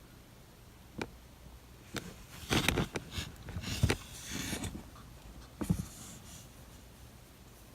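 A sleeping ferret snoring: short, irregular noisy breaths, several in the first six seconds, the loudest about three to four seconds in.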